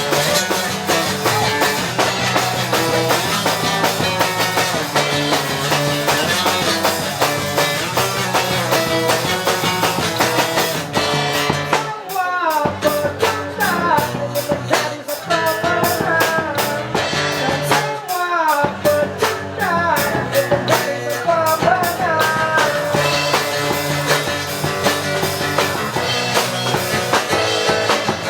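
Instrumental break of a pop-punk song in an acoustic arrangement, with drum kit and guitars. A little under halfway through, the backing thins out and a lead line plays sliding, bending notes, and the full band comes back in later on.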